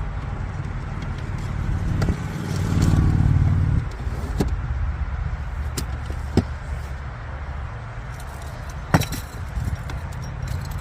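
Interior plastic trim being worked loose: a handful of sharp clicks and snaps, the loudest about nine seconds in, over a steady low rumble that swells for a second or so near the three-second mark.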